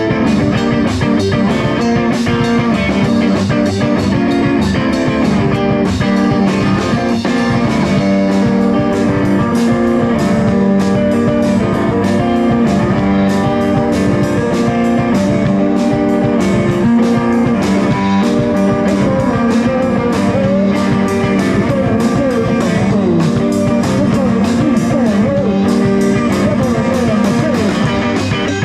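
Rock music: guitar playing over a steady drum beat.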